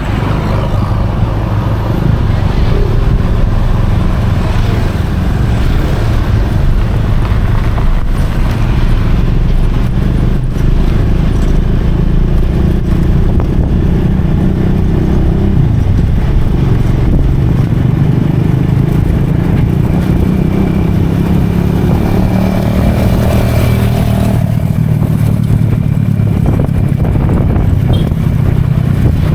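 Motorcycle engine running steadily while riding, its pitch rising and falling a little with the throttle.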